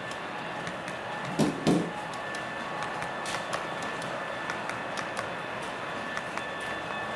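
Model train wagons rolling past on the track: a steady running noise with irregular clicks of wheels over rail joints, and two dull thumps about a second and a half in.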